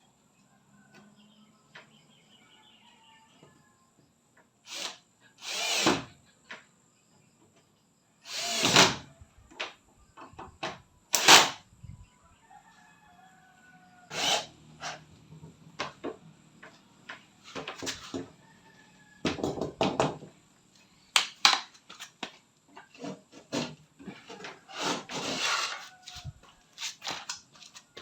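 Irregular knocks, clatter and short scraping bursts of hands-on work with tools and building materials, some much louder than others.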